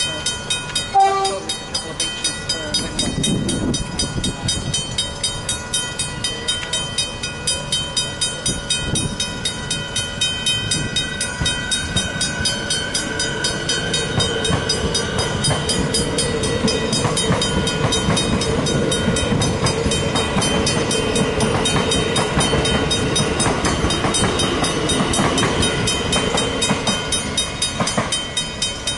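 A Safetran mechanical level-crossing bell rings in rapid, even strokes and stops near the end as the boom gates rise. About a second in the approaching train gives one short horn blast, then a suburban electric train rumbles and clatters across the crossing.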